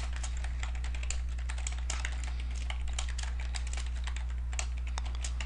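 Typing on a computer keyboard: a quick, irregular run of key clicks as a line of code is entered, over a steady low hum.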